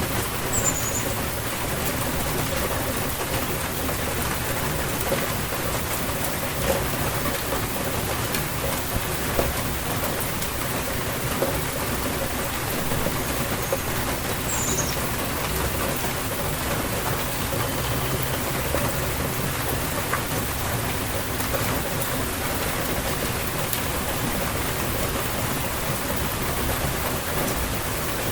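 Steady rainfall of a spring rainstorm, an even hiss with scattered drop ticks. Two brief high chirps cut through, one about a second in and one near the middle.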